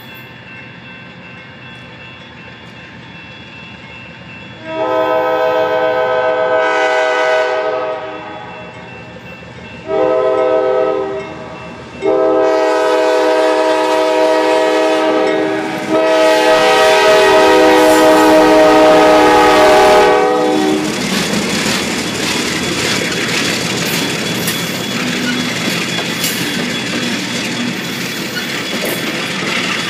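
A diesel locomotive's multi-chime air horn sounds for a grade crossing: a long blast, a short one, then a long blast held about eight seconds. Then the train rolls past, with the steady rumble and clatter of the engine and cars on the rails.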